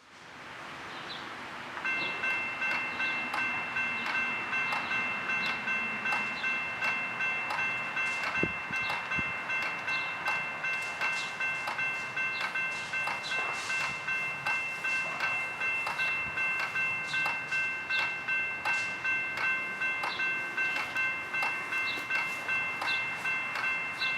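A railroad crossing bell starts ringing about two seconds in, struck evenly about twice a second, its ring carrying on between strikes.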